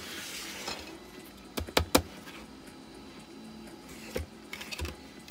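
Hard plastic mask being handled, with sharp knocks and clicks: a loud cluster of three about two seconds in and a few smaller ones near the end. Soft background music plays under it.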